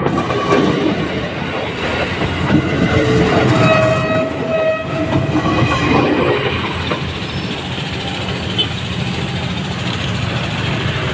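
Philippine National Railways passenger coaches rolling past close by, wheels rumbling and clattering over the rails, with a brief ringing tone a few seconds in; the sound eases slightly as the last coach moves away.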